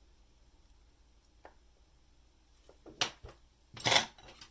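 Quiet bench work on a watch movement: a faint tick, then a sharp click about three seconds in and a short, louder rustle near the end, from small watchmaking tools being handled.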